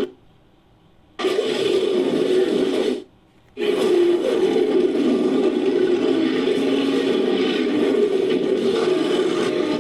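Designed monster growls mixed from layered ape and big-cat roars. One rough growl starts about a second in, then a short pause, then a long, unbroken growl.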